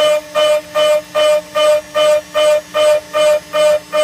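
ShopBot CNC router's 4 mm two-flute end mill at 18,000 RPM dry-cutting low carbon steel along a trochoidal toolpath. It makes a steady-pitched whine that pulses about two and a half times a second as the cutter bites into the steel on each loop.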